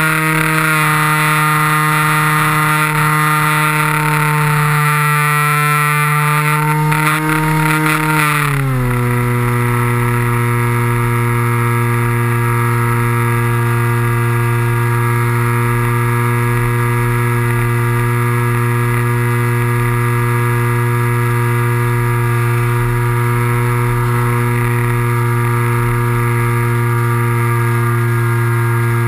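Electric motor and two-blade propeller of a foam RC model plane, heard close up from the plane's onboard camera: a loud, steady drone with a clear pitch. The pitch steps up slightly at the very start, falls smoothly about eight to nine seconds in as the motor slows, then holds steady.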